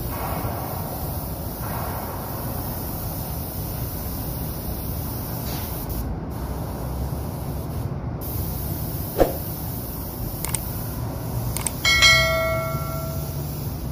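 Steady hiss of a compressed-air spray gun over a low hum, the hiss breaking off briefly twice. A few clicks follow, then about twelve seconds in a short bell-like chime, the subscribe-button sound effect.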